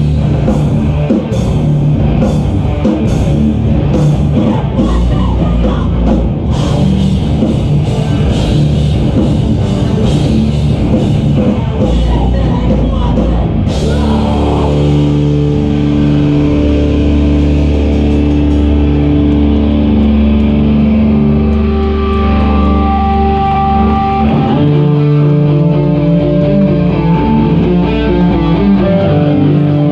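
Live heavy rock band playing loud. Drums, cymbals and distorted guitars play together at first. About halfway through, the drums stop and held distorted guitar and bass chords ring on, changing chord near the end.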